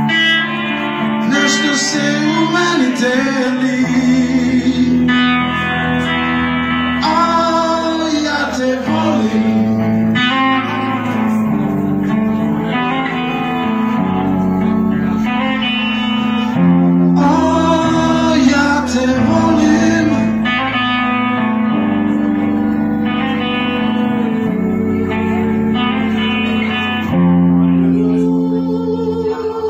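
A live band plays in a small room, led by an electric guitar whose notes repeatedly bend up and down over a steady bass line.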